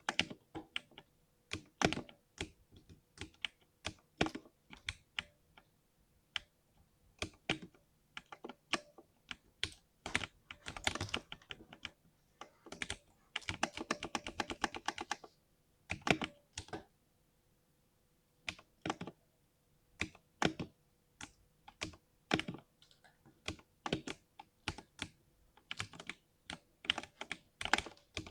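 Typing on a 60% mechanical keyboard, with keystrokes coming unevenly. There is a quick run of fast key presses about halfway through and a brief pause a few seconds later.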